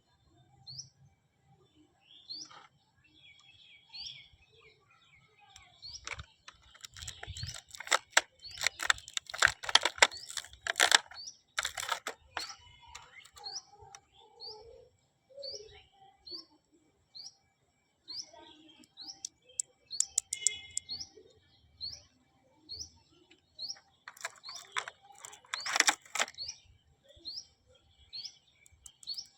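A bird chirping over and over, short rising chirps about once a second. Over it come bursts of clicking and rustling from small plastic pieces and packaging being handled, loudest in the first half and again near the end.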